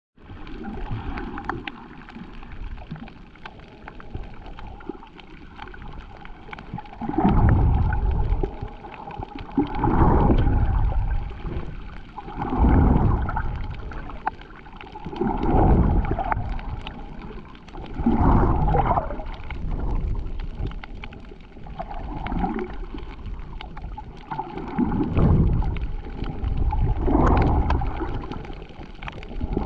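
Water heard from just under the surface: a muffled, steady gurgling hiss. From about seven seconds in, a swelling rush comes every two to three seconds.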